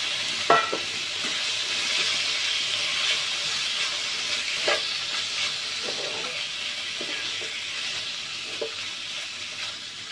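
Cubes of pork belly sizzling in a hot wok, a steady hiss, while a spatula turns them, with a few scraping knocks against the pan, the sharpest about half a second in.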